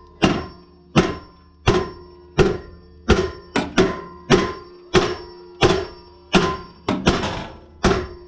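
Hammer blows on metal, about a dozen strikes at a steady pace of roughly one and a half a second, each ringing briefly, knocking a stuck blower fan loose on a Walker mower.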